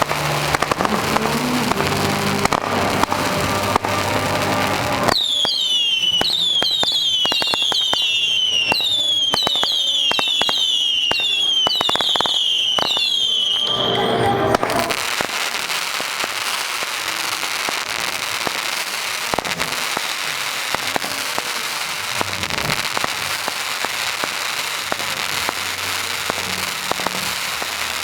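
Fireworks going off. About five seconds in, a run of high whistles starts, many overlapping, each falling in pitch, with sharp cracks among them. After about nine seconds the whistles stop and give way to a dense, even crackling hiss.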